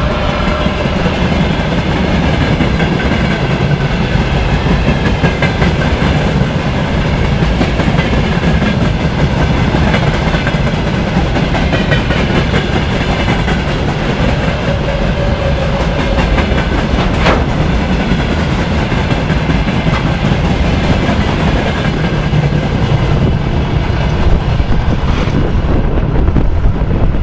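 Freight train of open gondola wagons rolling past close by: a steady rumble of wheels with clickety-clack over the rail joints, and thin squeals coming and going. There is one sharp clank about 17 seconds in. Near the end the last wagon goes by and the higher part of the noise falls away.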